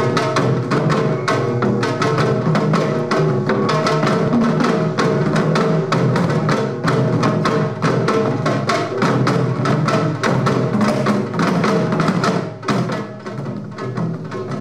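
Korean traditional percussion ensemble playing fast, dense strokes, led by a janggu hourglass drum struck with sticks alongside other drums, with a steady held pitch underneath. The playing thins briefly near the end.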